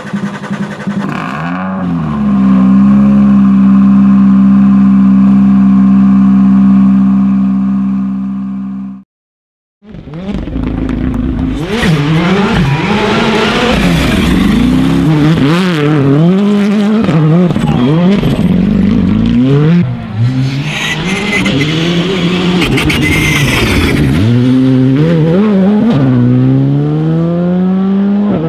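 R5 rally cars, among them a Hyundai i20 R5 with its 1.6-litre turbocharged four-cylinder, driven flat out, engines revving up and falling back through quick gear changes. Before them comes a steady engine-like drone held at one pitch for about eight seconds, which cuts off into a second of silence.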